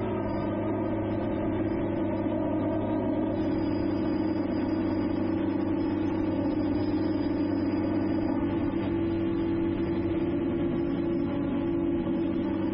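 Drone's electric motors and propellers running at a steady throttle, a constant hum made of several steady tones.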